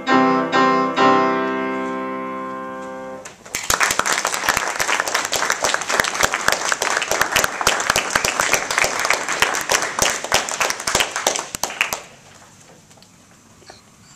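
Bösendorfer grand piano playing the last chords of a piece, the final chord ringing out and fading for about two seconds. Then an audience applauds for about eight seconds, and the applause stops abruptly.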